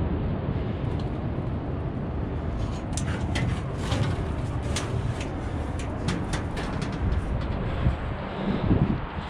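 Steady low rumble of wind buffeting the microphone, with city traffic noise underneath. A run of sharp clicks and crunches comes from about three to seven seconds in, as footsteps and hands move over broken boards and rusted steel.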